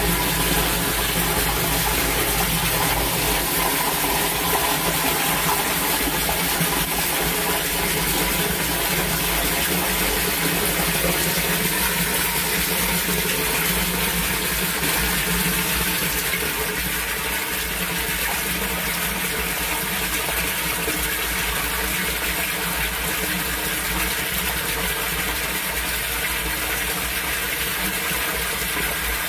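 Water gushing steadily through an outdoor sump pump and drainage system during heavy rain. A low hum drops out about three seconds in.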